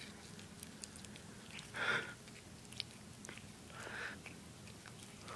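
A cat chewing and biting on a piece of string, with small clicking chews throughout. A louder noisy burst comes about two seconds in and a weaker one near four seconds.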